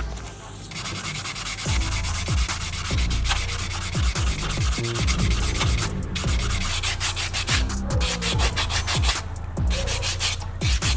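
Sandpaper rubbing a part of a scale model motorcycle in quick, even back-and-forth strokes.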